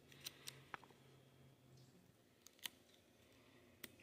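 A handful of faint, sharp plastic clicks from fingers handling the flex cable and small parts inside an opened Samsung SM-T530NU tablet; the loudest click comes about two-thirds in.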